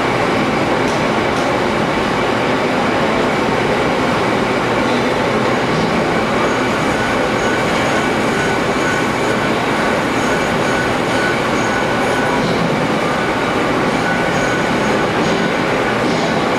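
Machine-shop machinery running: a loud, steady mechanical noise with faint thin whines above it.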